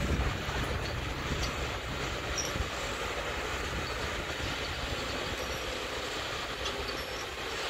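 Tigercat 635G six-wheel skidder running as it drives down a steep slope: a steady engine and drivetrain rumble, a little heavier at the start.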